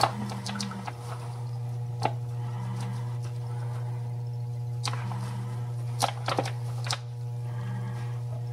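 A steady low hum runs under a handful of short clicks and crinkles as a plastic bag of gluten-free flour and a measuring cup are handled while flour is poured.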